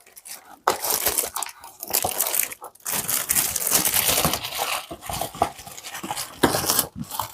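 Plastic packaging crinkling and rustling in irregular spurts, with small clicks and taps, as items are handled and unwrapped.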